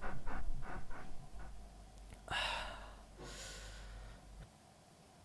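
A person breathing heavily: quick, rhythmic panting breaths fade out over the first second, then come two long, breathy sighs, and it falls quiet near the end.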